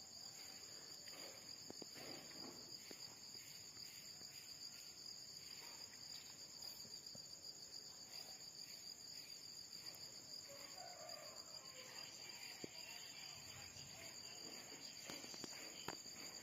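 Crickets chirring steadily in two high, unbroken bands, with a few faint scuffs and sharp clicks.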